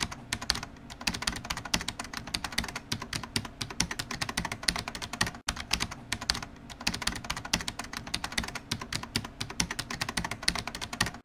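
Rapid, irregular small clicks and taps in a dense run, with a brief break about halfway through.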